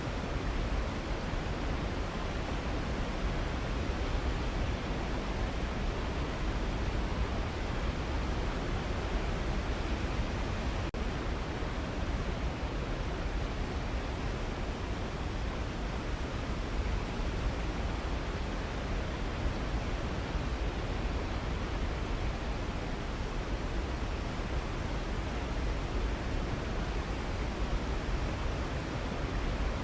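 Waterfall rushing steadily, a continuous deep, even wash of falling water.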